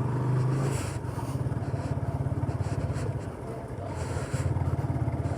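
Motorcycle engine running while riding, a steady fast pulse of exhaust beats. It eases off slightly about three seconds in and picks up again a second later.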